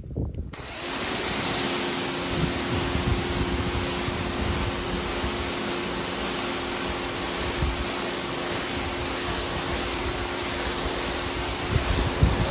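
Electric pressure washer running and spraying water: a loud, steady hiss of the jet that starts about half a second in, with a steady motor hum joining a moment later.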